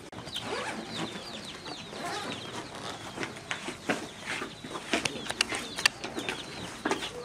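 Birds chattering and calling, with the clatter and rustle of bags and boxes being handled; sharp knocks come about five to six seconds in.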